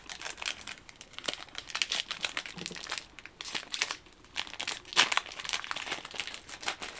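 Foil Yu-Gi-Oh booster pack wrapper crinkling as it is handled and opened, a dense run of crackles with the sharpest one about five seconds in.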